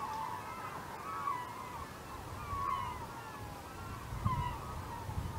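A large flock of gulls calling over the river: many overlapping cries at once. A low rumble underneath swells near the end.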